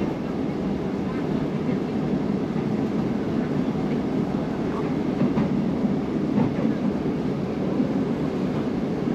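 KRL commuter electric train running along the line, heard from inside the carriage: a steady rumble of wheels on rails, with a few faint clicks near the middle.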